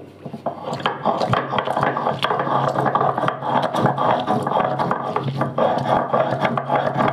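Vinegar-soaked dried red chillies being ground by hand on a stone grinding slab (shil-nora): a steady, gritty scraping with many small clicks.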